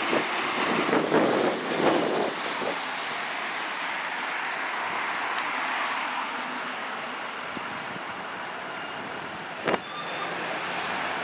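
UPS step-van delivery truck driving past and pulling away, its engine and tyre noise fading into steady street traffic noise. A single sharp knock sounds near the end.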